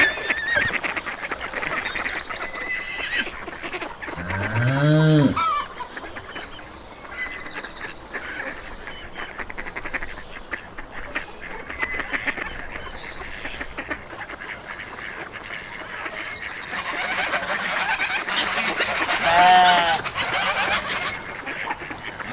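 Farmyard ambience with geese honking, loudest in a burst near the end, over small birds chirping throughout. A lower, drawn-out animal call rises and falls about four seconds in.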